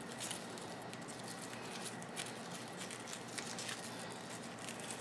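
Potting soil crumbling and boat lily roots and leaves rustling as hands work at a root ball, a faint scatter of soft crackles and light clicks.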